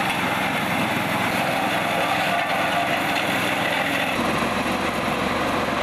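Engine of a small ride-on tandem road roller running steadily as it compacts a fresh asphalt patch; its note shifts about four seconds in.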